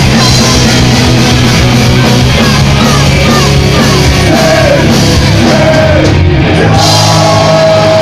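A rock band playing live: electric guitars, bass and drums with a shouted lead vocal.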